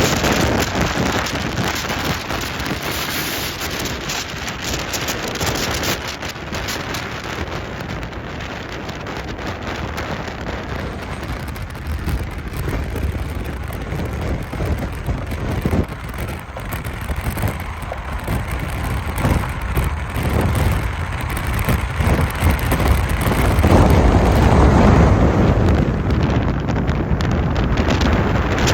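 Moving vehicle's steady rumble with rushing wind buffeting the microphone, growing louder near the end.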